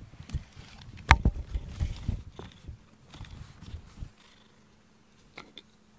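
A cat purring close up: a low, fast rumble that stops about four seconds in, with one sharp knock about a second in.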